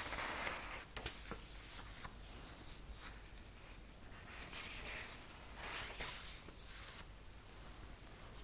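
Paper cards rustling and sliding as gloved hands peel the top card off a stack and lay it aside, once at the start and again about five seconds in, with a few soft ticks of card edges in between.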